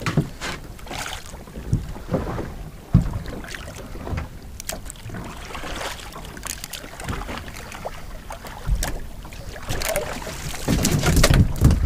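Wind on the microphone on an open boat at sea, with scattered knocks from the rod and gear being handled. Near the end, louder water noise as a conger eel is brought to the surface beside the boat.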